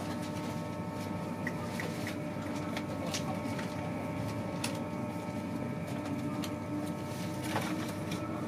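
Running noise inside an InterCity 225 passenger coach on the move: a steady rumble of wheels on the track, with faint steady tones and a few sharp clicks and knocks from the coach.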